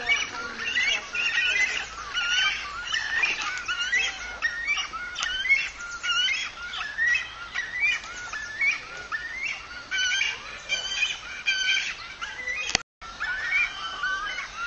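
Cormorant chicks begging at the nest: a dense, continuous run of short, high, overlapping chirping calls, with a brief break near the end.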